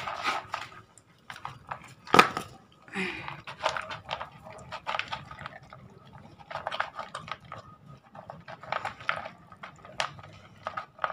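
A dog eating dry kibble from a plastic bowl: irregular crunching and clicking as it chews and noses the kibble against the bowl, with one sharp knock about two seconds in.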